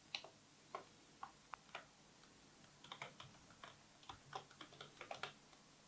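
Computer keyboard keys clicking faintly as text is typed: a few separate keystrokes at first, then a quicker, irregular run of presses in the second half.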